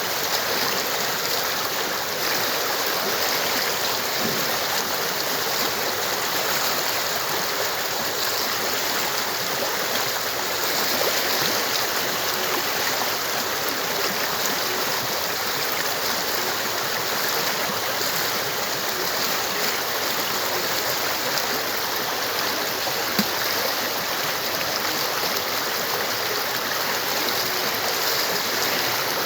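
Stream water flowing steadily over rocks, an even rushing and burbling with no let-up.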